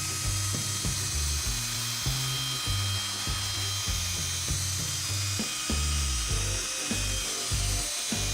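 Background music with a steady beat and bass line, over the steady whine of a drill spinning a foam polishing pad with compound on a plastic headlight lens.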